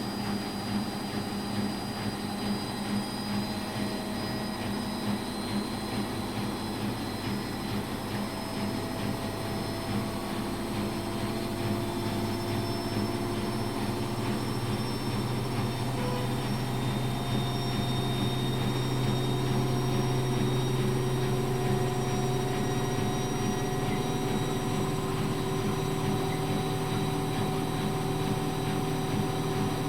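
Washing machine running: a steady motor hum with a faint regular beat at first, then slowly rising in pitch and getting louder as the machine speeds up, before holding steady.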